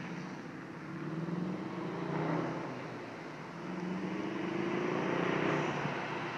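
VW GTI 2.0T turbocharged four-cylinder engine, through an aftermarket turbo-back exhaust, being revved: its note climbs and falls back twice. It is running with misfiring ignition coils on cylinders 2 and 4, which alters the exhaust sound.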